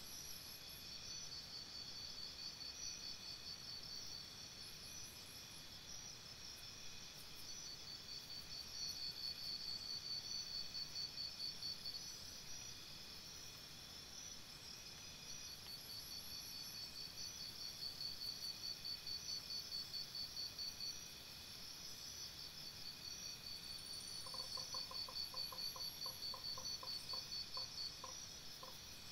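Insects trilling, a faint high-pitched pulsing chorus that swells and fades in bursts of a few seconds. A short series of evenly spaced low pips comes in near the end.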